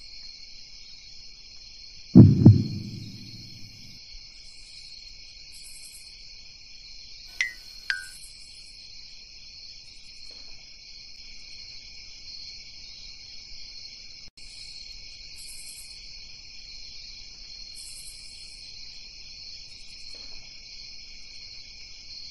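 Night-time ambience of crickets chirping steadily in a pulsing high trill. About two seconds in, two heavy low thuds, the loudest sounds here, ring out briefly; around seven to eight seconds, two short sharp noises close together.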